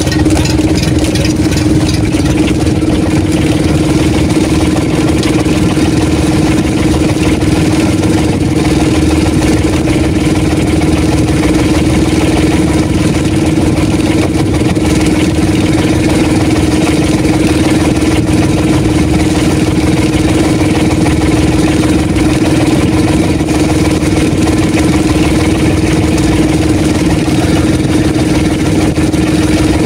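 Engine of a motorized outrigger fishing boat running steadily, a loud, even hum that holds one pitch without revving.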